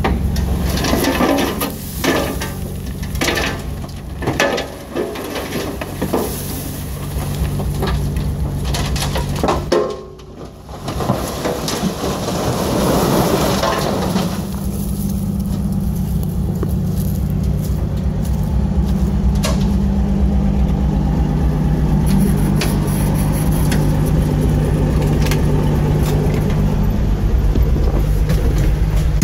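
A 1973 Diamond Reo dump truck's gas engine runs steadily while the raised bed tips out a load of dirt. In the first ten seconds there are repeated knocks and clatter. About eleven seconds in, a rush of dirt sliding out follows, and the engine note then carries on steady and a little higher.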